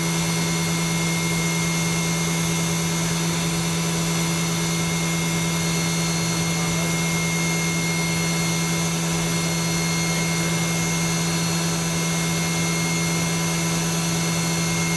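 Kitamura Mycenter 2XiF vertical mill's spindle running at 10,000 RPM, spinning free without cutting: a steady, unchanging whine at one pitch with a higher tone above it.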